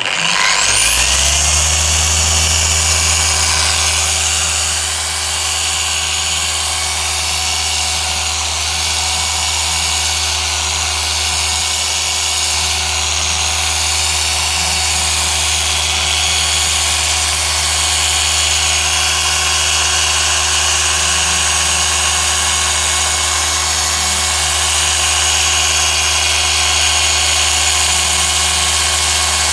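Rupes BigFoot machine polisher with a small foam pad starting up, its electric motor winding up to speed within the first second or two and then running steadily with a hum and a high whine. It is cutting a car's plastic rear light lens with medium compound.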